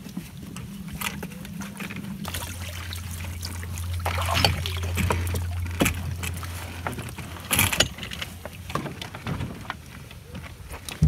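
Water rushing and splashing along the hull of a Hobie Getaway sailing catamaran under way, with scattered sharp knocks from gear and footsteps on deck, the loudest about halfway through and again near three-quarters in.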